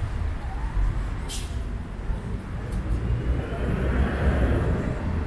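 Outdoor traffic noise with a steady low rumble. There is a short hiss about a second in, and a vehicle grows louder from about three seconds in.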